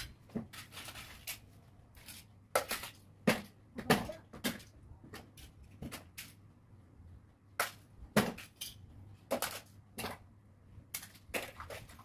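Plastic toys clattering as they are sorted by hand and tossed together, a string of irregular sharp clacks and knocks.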